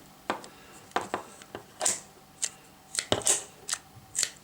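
Ratchet pruning shears (secateurs) clicking as the handles are squeezed and released, the ratchet mechanism that lets the blade close on a branch in three stages. About nine short, sharp clicks at uneven intervals, several close together in the middle.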